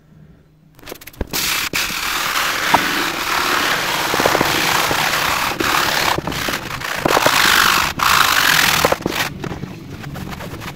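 Stiff hand brush scrubbing foamy cleaner into the textured Tolex vinyl covering of a guitar amp cabinet: a loud, harsh scrubbing noise that starts about a second in, with brief breaks between strokes, and stops near the end.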